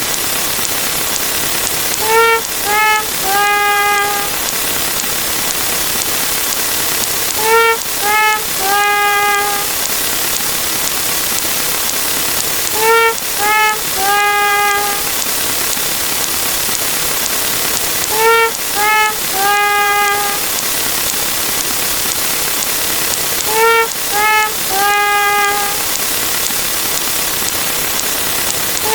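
Sad trumpet sound effect, the 'wah-wah-wah-waaah', repeating about every five and a half seconds: three short notes stepping down in pitch, then a longer held low note. A steady loud hiss runs underneath throughout.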